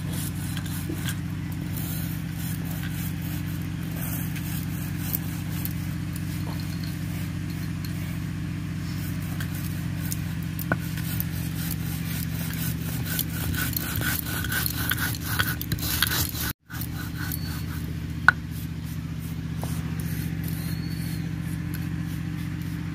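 Roasted cumin seeds being ground by hand on a stone grinding slab (shil-nora), a rhythmic scraping and crunching of stone on stone over the crisp dry seeds. The strokes grow stronger about two-thirds of the way through.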